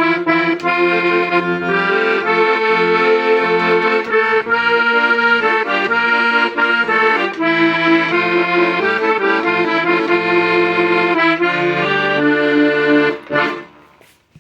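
Hohner Ouverture accordion being played: a melody of changing notes over held bass and chord notes. The playing stops with a short fade about a second before the end.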